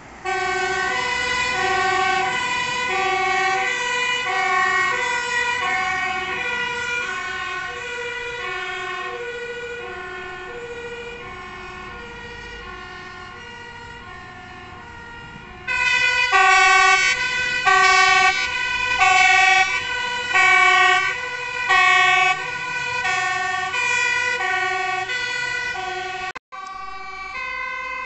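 Two-tone sirens of Dutch fire engines on an emergency run, alternating between two pitches. The first siren fades as it moves away. About halfway through, a second, louder one starts close by.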